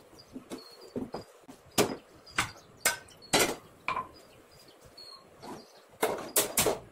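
Cookware knocking and clattering on a gas stove: about a dozen sharp, separate knocks, with a quick run of three near the end.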